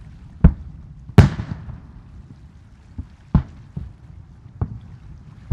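Aerial firework shells bursting: about six sharp booms at uneven intervals, the loudest about a second in with a brief hissing tail, over a low rumble.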